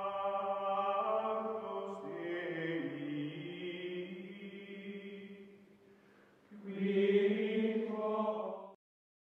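Outro jingle of choir-like voices holding long sustained chords. The first chord fades away about six seconds in, and a second, louder one follows and stops abruptly near the end.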